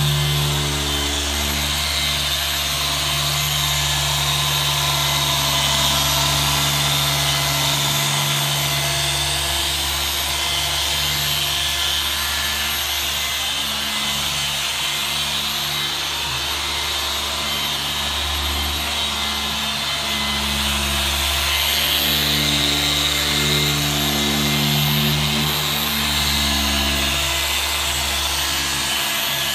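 Rupes Bigfoot random-orbital polisher with a green foam pad running steadily against car paint, a constant motor hum and whir whose tone wavers a little. It is machine-polishing scratched, weathered black paint as one stage of a multi-step paint correction.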